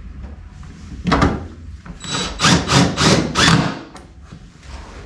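Scraping and rubbing noises from work on a car's lower body panel: one stroke about a second in, then a run of four louder strokes close together.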